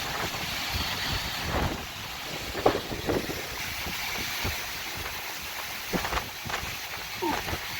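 Gusty wind rushing and buffeting the microphone with an uneven low rumble. A few brief higher sounds break through, the sharpest a little under three seconds in, with more near the end.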